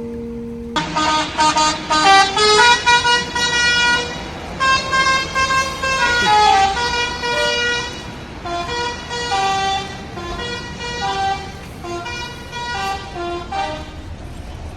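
Indonesian bus 'telolet' multi-tone horn playing a quick tune of stepping notes. The tune starts about a second in and carries on almost to the end.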